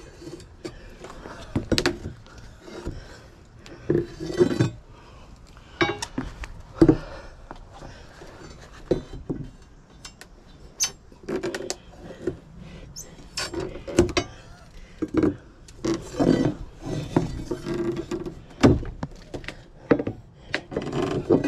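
Steel pry bars clinking and knocking against wooden deck joists and nails: irregular sharp metallic clinks mixed with duller wooden knocks as old decking is pried apart.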